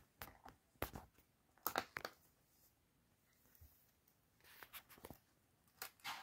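Faint, scattered clicks and rustles of hookup wires being handled and sorted through in an electronics kit's wire compartment.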